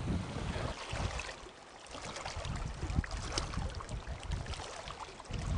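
Water splashing and dripping from kayak paddling, with gusts of wind on the microphone. There is a short lull about a second and a half in.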